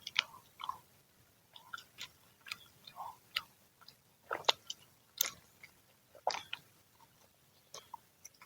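Close-up chewing of freshly fried fritters: irregular wet clicks and crunchy snaps from the mouth, the loudest a little past halfway.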